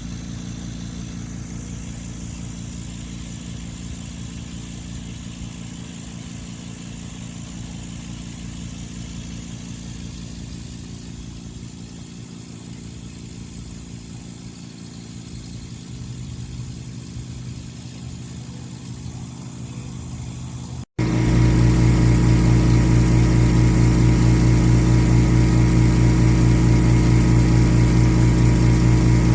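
The 3/4 HP air compressor of a VEVOR pond aerator running with a steady low electric hum. About two-thirds of the way through, the hum abruptly becomes much louder and heavier.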